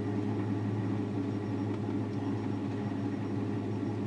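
Six-cylinder car engine idling steadily at operating temperature. The engine has an intermittent random-cylinder misfire (code P0300) but is running without misfires at this moment.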